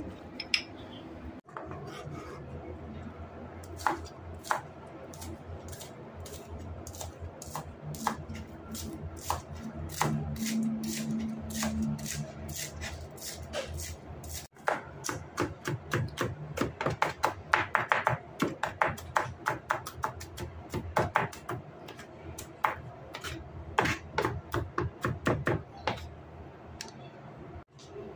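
Kitchen knife chopping spring onions on a plastic cutting board: a run of sharp knife taps on the board, a few scattered ones at first, then quick, dense chopping through most of the second half.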